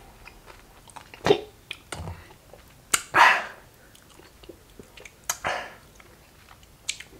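A person chewing a Paqui One Chip Challenge chip, letting out several short, sharp breaths through the mouth against the chili heat.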